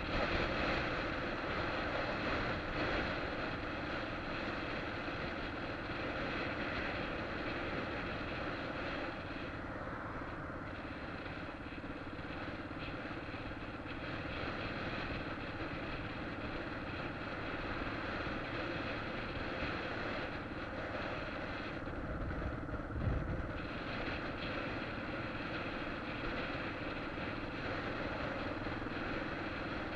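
Yamaha XT600E's air-cooled single-cylinder four-stroke engine running steadily while the motorcycle cruises, with wind and road noise over it. A brief low thump about two-thirds of the way through.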